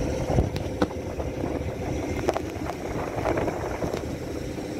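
Boat under way: a steady low rumble mixed with wind buffeting the microphone, with a few faint clicks.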